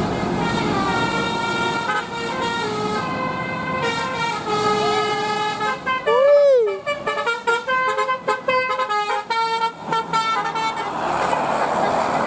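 Indonesian bus 'telolet' musical air horn of the Basuri type playing a tune in stepped horn notes. About six seconds in comes a loud swooping rise-and-fall in pitch, followed by a run of quick short toots. Near the end the notes give way to a steady rush of noise.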